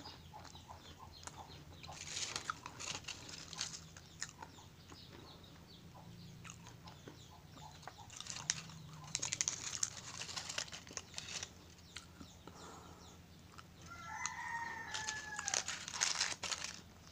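Ferrero Rocher gold foil wrappers crinkling as they are unwrapped, mixed with crunchy chewing of the chocolates, in several bursts. Near the end a rooster crows once in the background, a long call that falls away at its end.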